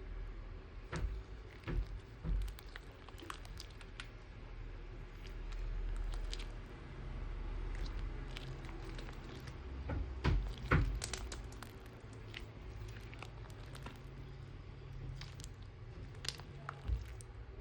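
Homemade slime being squeezed and worked by hand: soft squishing with scattered light clicks and pops.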